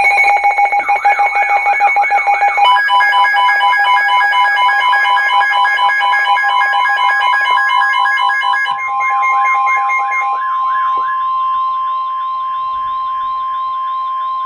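Emergency alert warning tones announcing a severe thunderstorm warning. Several alarm tones sound at once: a fast warbling, siren-like tone of about three swoops a second over steady and beeping tones. Some layers drop out about nine seconds in, and one steady tone keeps sounding underneath.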